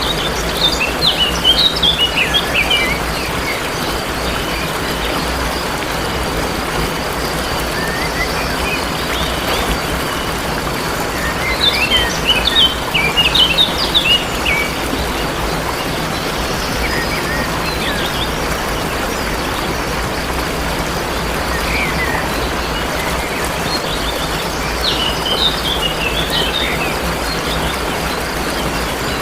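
Steady rushing of a waterfall, with songbirds breaking in three times with quick bursts of chirping: at the start, about halfway through and near the end. A thin, steady high-pitched tone from insects runs underneath.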